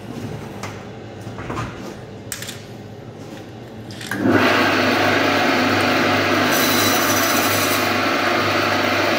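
Electric band saw cutting through a whole fish. The motor hums under a few knocks of the fish being handled, then about four seconds in a loud, steady rasping starts as the blade bites into the fish and keeps going.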